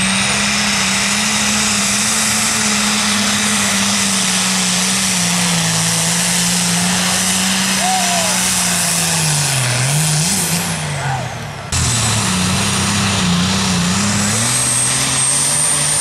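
Turbocharged diesel pulling-tractor engine running hard and steady at high revs under full load. About nine seconds in, its pitch sags and wavers as the engine bogs and the tractor slows near the end of the pull. After an abrupt break, another pulling tractor's engine runs, with a thin high whine rising near the end.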